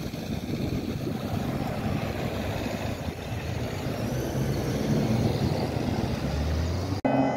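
Lifeliner 2 trauma helicopter flying away after take-off, a steady low rotor and engine rumble. The sound cuts off abruptly near the end.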